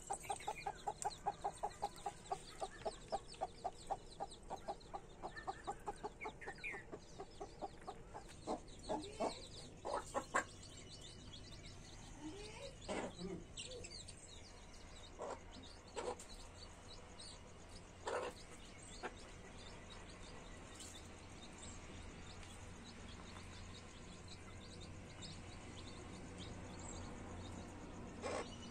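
Mother hen clucking, first in a fast, even run of about five clucks a second, typical of a hen's food call to her chicks, then in slower single clucks that thin out in the second half. Newborn chicks peep faintly and high throughout.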